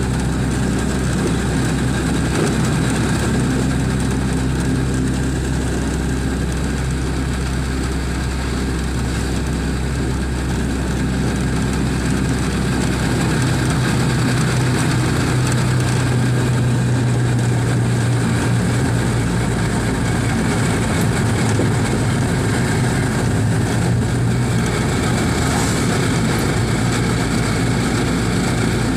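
A vehicle's engine running and its tyres on the road, heard from inside the cab while driving: a steady low hum whose pitch shifts upward about halfway through.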